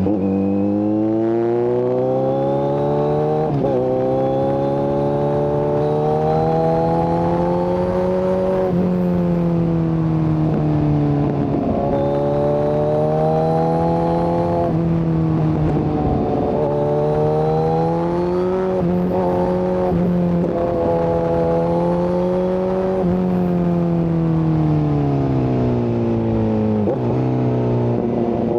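Kawasaki Z900's inline-four motorcycle engine breathing through an open SC-Project exhaust with no catalytic converter, ridden hard. The revs climb repeatedly, with quick drops at the gear changes about every three to five seconds, and ease off twice as the rider rolls off the throttle.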